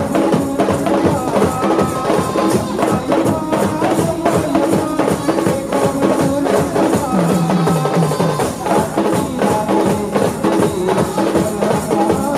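Indian wedding brass band playing fast dance music: held melody notes over a dense, driving drum beat with cymbals.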